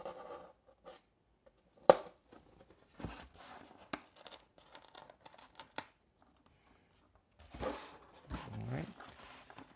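Hobby knife cutting slots in paper-faced foam board: a sharp tap about two seconds in, then a run of short scratchy cuts. Near the end the foam board skin rubs as it is folded down over the servos.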